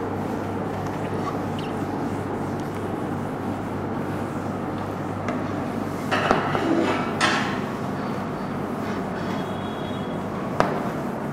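Cloth rubbing across a whiteboard as it is wiped clean, in two brisk scratchy strokes about six to seven seconds in, over a steady low hum. A single sharp tap comes near the end.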